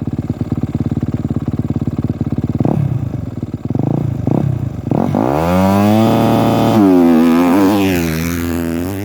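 Motocross dirt bike idling with a few quick throttle blips, then about five seconds in a hard start: the revs climb steeply and the bike pulls away under full throttle, shifting up through the gears.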